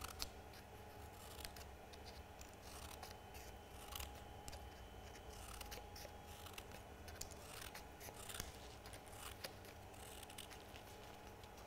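Scissors cutting coloured card in a zigzag: a series of faint, irregular snips, about one a second.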